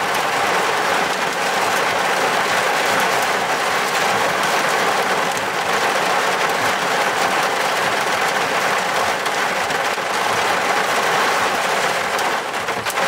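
Heavy thunderstorm downpour: a dense, steady hiss and patter of rain.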